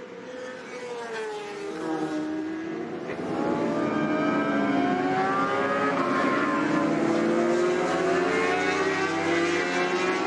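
Racing superbike engines at high revs, several bikes at speed with their pitch rising and falling. The sound gets louder from about three and a half seconds in.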